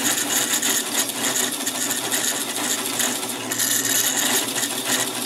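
Drill press running steadily while a 1/2 inch Forstner bit bores a flat-bottomed hole into a wooden board, the motor hum mixed with the hiss of the bit cutting.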